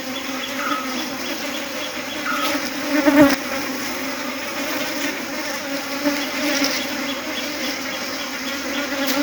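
Dense, steady buzzing of a honey bee swarm flying around the hive box and settling back onto it, with a louder swell about three seconds in. The workers are returning because the queen is held inside the box by a queen guard across the entrance.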